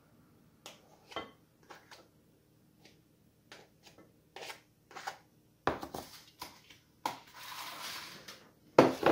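A knife scraping and tapping as margarine is scooped out of a tub and pressed into a measuring cup: a run of short scrapes and clicks, then a longer scrape lasting about a second and a half. Near the end there is a sharp knock, the loudest sound, as something is set down on the counter.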